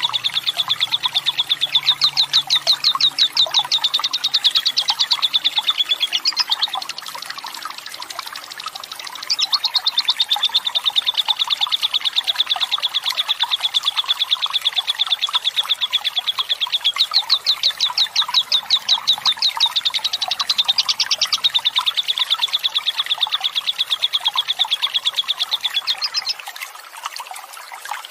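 Lovebird's long, rapid chattering trill (ngekek panjang): a fast, unbroken string of high chirps in long bouts. It drops quieter for a few seconds about six seconds in, resumes, and fades near the end, over the hiss of running water.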